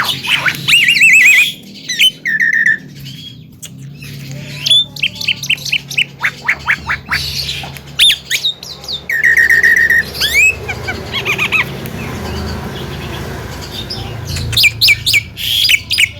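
Javan myna singing a loud, varied medley of whistles, squawks and rapid repeated notes, with short buzzy trills held on one pitch; it goes quieter for a couple of seconds past the middle, then bursts out again near the end.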